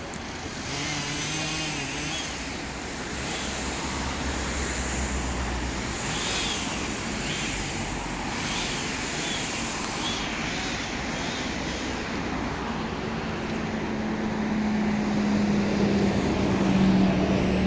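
Outdoor construction-site and road-traffic noise: a diesel engine rumbling low through the first half, short repeated high chirping sounds in the middle, and a steady engine tone that grows louder near the end.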